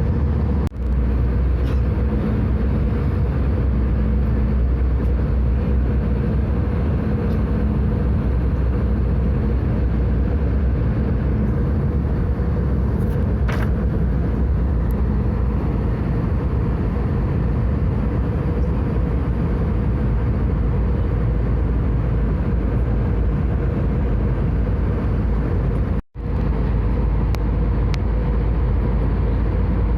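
Steady cabin noise of an Airbus A320 airliner in flight: the deep, even rumble of engines and airflow, with a faint steady hum. It cuts out for an instant twice, about a second in and near the end.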